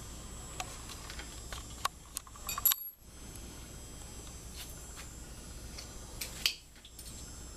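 Scattered metallic clicks and clinks of a hand tool working the loose engine-case screws on a Harley-Davidson motorcycle, over a low steady hum, with a sharper cluster of clinks a few seconds in and again near the end.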